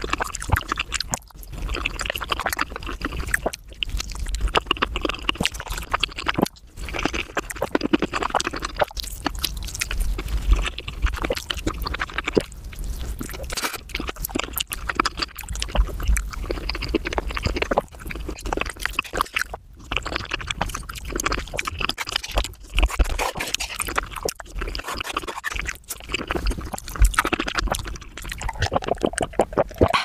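Close-miked eating sounds sped up fivefold: chewing, mouth smacks and spoon scraping on a bowl run together into a fast, dense clatter of clicks.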